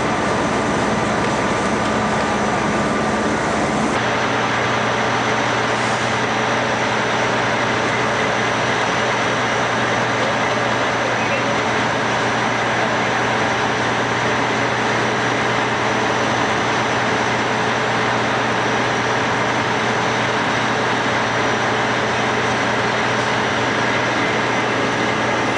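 Steady, loud engine drone with a low hum and a broad hiss over it, like emergency vehicles running at a fire scene. The sound changes abruptly about four seconds in.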